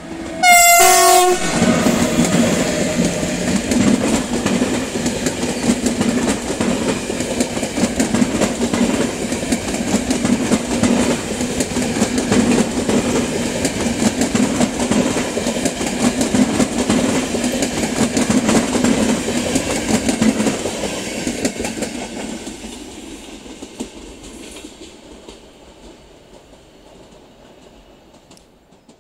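Siemens Hellas Sprinter electric locomotive sounding its horn as it reaches the camera, the horn's pitch dropping as it passes, followed by its passenger coaches rumbling and clattering over the rail joints. The train noise holds for about twenty seconds and then fades away as the last coaches recede.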